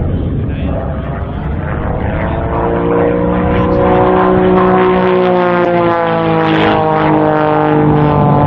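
Aerobatic biplane's piston engine and propeller droning overhead, swelling louder about three seconds in as it levels out of a dive, its pitch sliding slightly lower toward the end.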